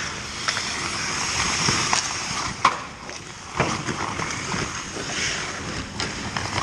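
Ice hockey skate blades scraping and carving on the ice, with sharp clacks of sticks and puck; the loudest clack comes about two and a half seconds in, another a second later.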